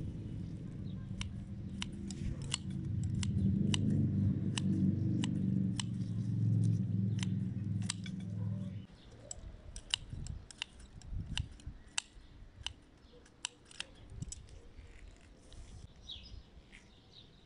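Scissors snipping through the stems of St John's wort flower heads, a short crisp snip every second or so. A low steady hum sits under the snips in the first half and cuts off suddenly about halfway through.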